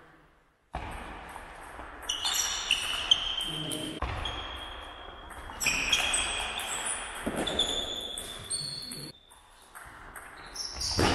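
Table tennis rally: the ball clicking off bats and table, with shoes squeaking briefly on the sports hall floor. It starts about a second in, after near silence, and dies down briefly near the end between points.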